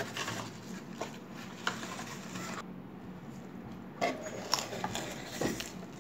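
Cardboard pizza box being handled: a few short taps and scrapes, with a cluster of them about four seconds in as the lid is opened.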